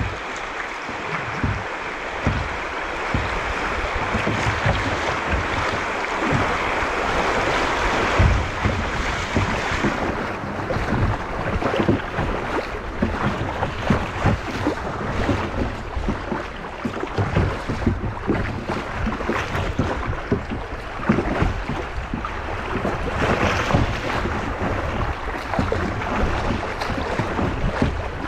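Fast, muddy creek water rushing and splashing around a kayak's bow as it runs riffles at high water, with wind buffeting the microphone. A steady hiss of rushing water gives way about a third of the way in to choppier splashing with frequent low knocks against the hull.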